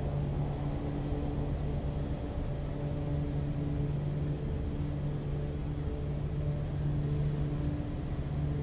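Steady low mechanical hum at a constant pitch, with no change in level.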